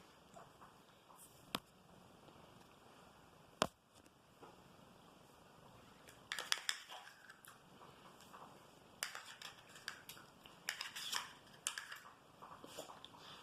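Spoon clicking and scraping against a small yogurt pot while eating, with two sharp single clicks in the first four seconds, then short bursts of crackly scraping.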